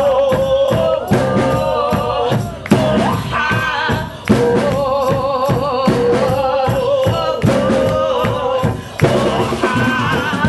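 Live rock band playing an instrumental passage: a drum kit keeps a steady beat of hits under long held notes with a wavering vibrato.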